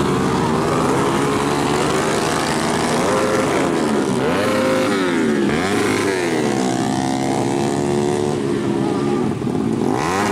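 Several 150cc four-stroke supermoto engines racing, their pitch rising and falling as they rev through corners and pass. Near the end one bike goes by close, its note sweeping up and then dropping away.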